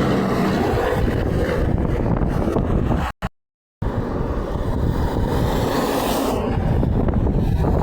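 Steady rumble of road traffic with wind buffeting the microphone, and no horn sounding. The sound cuts out completely for about half a second around three seconds in.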